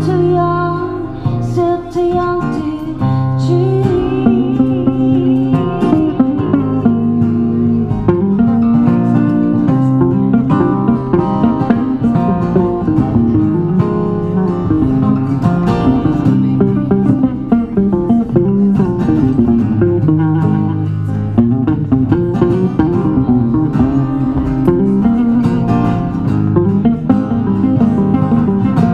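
Live acoustic band music: acoustic guitars strumming with an electric guitar, playing steadily throughout.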